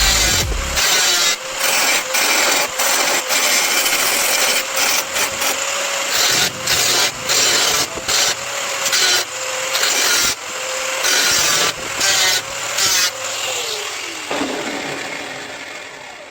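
A power tool runs steadily on car-door sheet metal in repeated passes, with a constant motor hum under a loud scraping noise that breaks off briefly about once or twice a second. The sound fades out over the last few seconds.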